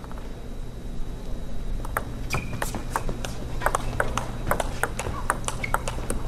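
A table tennis rally: the ball clicks sharply off the rackets and the table in a quick, irregular run of hits from about two seconds in.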